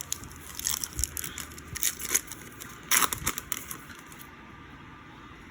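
Trading cards and their packaging being handled: a run of crinkles and clicks, loudest about three seconds in, that dies away after about four seconds.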